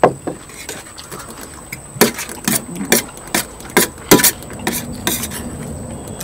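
Cutlery clinking and scraping against plates as people eat, in irregular sharp clinks that come thickest through the middle.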